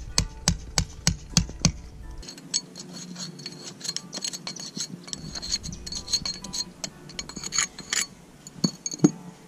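Hammer driving a chisel into the lime mortar joint of a brick wall, about three blows a second for the first two seconds. The chisel then works the mortar loose with lighter, irregular clinks and ticks, and there is one sharper knock near the end.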